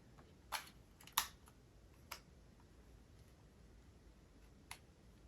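Four short, sharp clicks and taps from handling a new mirrorless camera and its battery, the loudest just over a second in.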